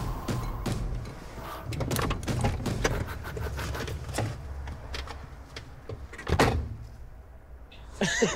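A car door opening and shutting as a passenger climbs out, amid knocks and rustles of movement in the seat. The loudest is a sharp thud about six seconds in.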